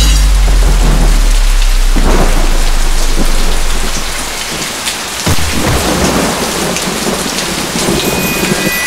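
Heavy rain pouring down, with a deep rumble of thunder at the start that dies away over about three seconds, and a sudden crack about five seconds in.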